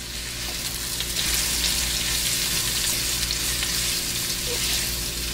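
Zucchini noodles and mushrooms sizzling in hot sunflower oil in a small wok while being stirred and tossed with a wooden spatula. A steady hiss that grows louder about a second in.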